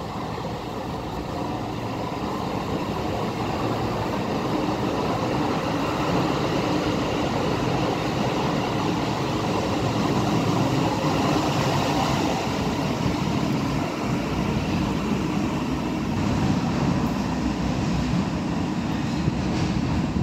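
Düwag B100S light-rail car running along an underground platform and into the tunnel: a steady rumble of wheels and running gear, echoing off the tunnel walls. It grows louder over the first half and stays loud, with a few sharp clacks near the end.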